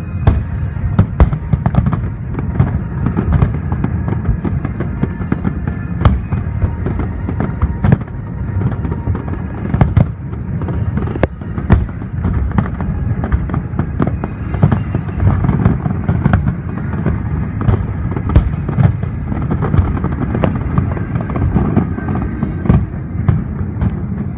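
Large aerial fireworks display going off continuously: a dense run of sharp bangs and crackles, one after another, over a steady low rumble of overlapping bursts.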